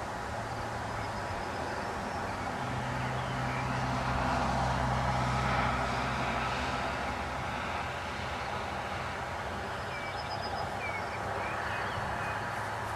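Low engine hum of a passing vehicle that swells about four seconds in and then fades, with a few faint bird chirps near the end.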